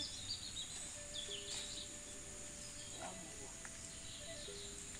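Birds chirping a few times over a steady high-pitched hiss of rural outdoor ambience.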